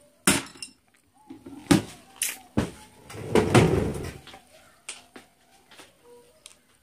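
A clear plastic storage container and its lid being handled: a few sharp knocks and clicks, then a louder, longer scraping noise about three seconds in.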